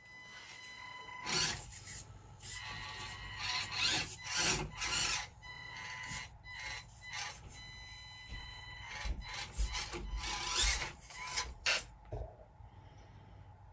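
A 1/24-scale micro RC crawler's small electric motor and gears whining stop-start with the throttle as it crawls over and down rocks. Its soft rubber comp pin tires and chassis scrape and grind against the stone.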